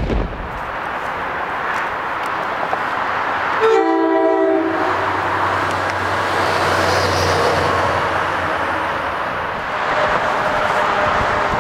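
A locomotive air horn sounds one short chord about four seconds in, over a steady rushing background noise. A faint horn tone comes back near the end.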